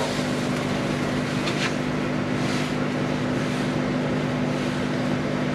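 Steady mechanical hum of a running motor, a low drone of several pitches that holds level throughout.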